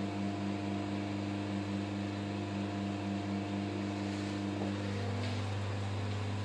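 Steady mechanical hum of a running motor or fan, with a faint regular pulsing in it; one of its tones drops out about five seconds in.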